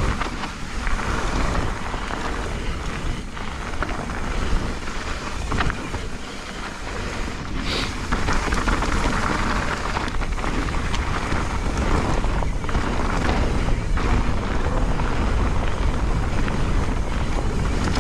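A mountain bike descending a wet, muddy trail at speed: wind rushing over the microphone and tyres on the soaked dirt, with scattered knocks and rattles from the bike over bumps.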